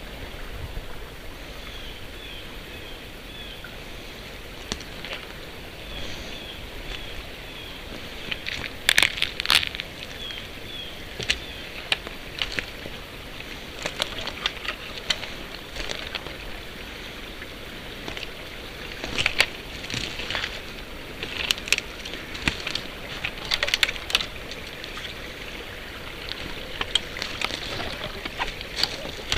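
Footsteps crunching on twigs and dry forest litter in several bursts, over a steady rush of a small stream. A bird repeats short high chirps over the first several seconds.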